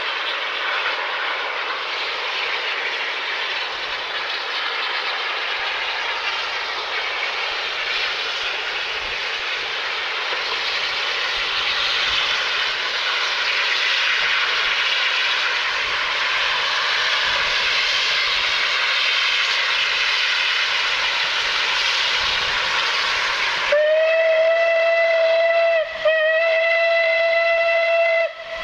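Steam locomotive 34092 City of Wells, an unrebuilt Bulleid West Country Class pacific, working hard uphill with a train: a steady roar of exhaust, then near the end two whistle blasts in quick succession.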